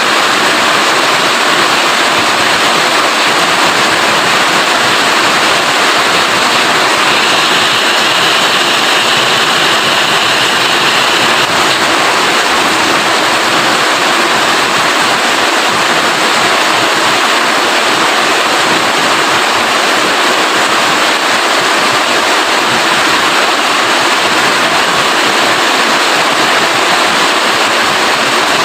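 Heavy rain falling steadily: a loud, dense, even hiss of water.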